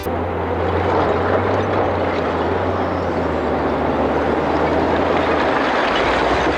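Heavy construction machine's diesel engine running steadily, a constant low hum under a broad rushing noise.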